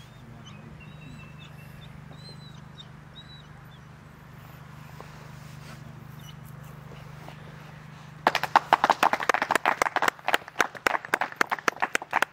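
Faint birds chirping over a steady low hum, then about eight seconds in a loud run of rapid, irregular hand clapping.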